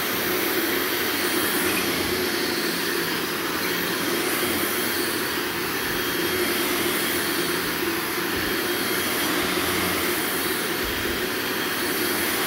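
Carpet-cleaning extraction machine's vacuum motor running steadily, a constant rushing whine with a faint hum beneath it.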